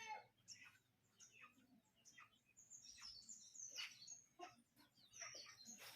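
The tail of a rooster's crow dying away at the very start, then faint, scattered high chirps of small birds, each one short and falling in pitch.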